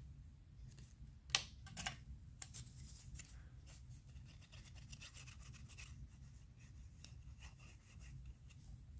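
Faint rubbing and light tapping of black cardstock pieces being handled and pressed together, with a sharper tap about a second and a half in and a second one shortly after.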